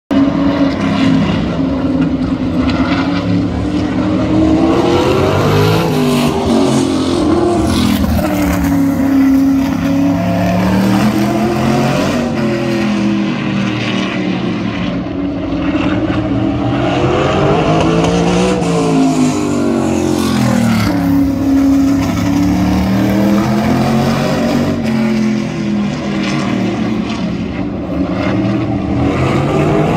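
Sprint car engine lapping a short oval, revving up along each straight and easing off into each turn, so its pitch rises and falls about every six seconds.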